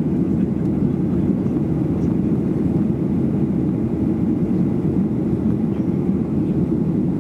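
Steady cabin noise inside a Boeing 737-800 in flight, heard from a rear seat: an even, low rumble of its CFM56-7B turbofan engines and rushing air, unchanging throughout.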